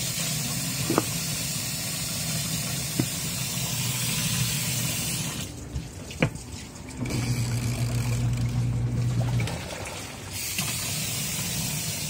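Tap water running steadily into the tub of a 4 kg twin-tub washing machine as it fills. For a few seconds in the middle the water sound drops back and a low, steady machine hum comes through.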